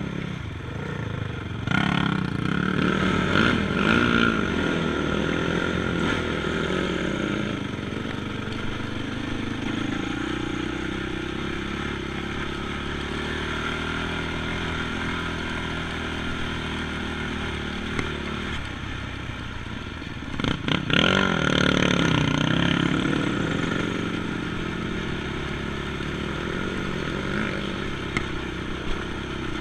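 ATV engine running while riding, revving up loudly twice, about two seconds in and again around twenty seconds in, with the pitch rising and falling. It runs steadily in between.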